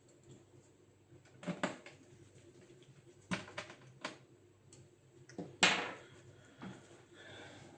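Irregular clicks and knocks of hard plastic and metal parts being handled while working on a laptop, about half a dozen sharp taps, the loudest a little over halfway through.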